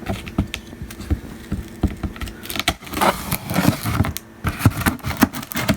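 Cardboard box being cut open with a utility knife: scattered clicks and knocks of the knife and box, with a longer stretch of scraping and rubbing about halfway.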